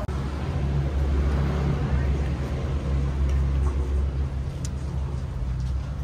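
Steady low rumble of a running vehicle engine.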